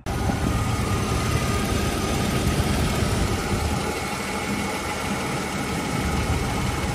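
Mercedes 190E 2.6 straight-six engine idling steadily, the bonnet open, running after a fresh automatic transmission fluid fill.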